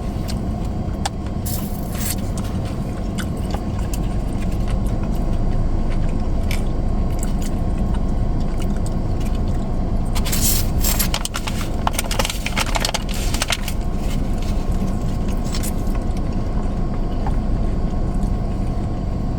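Eating crispy fried chicken wings close to the microphone: chewing with scattered crunches and crackles, busiest a little past halfway, over the steady low rumble of a car's cabin.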